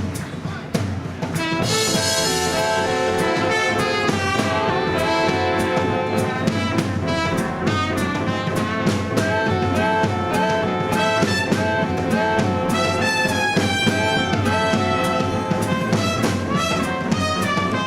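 Live jazz dance band playing an upbeat instrumental, with horns over a drum kit; a cymbal crash about two seconds in.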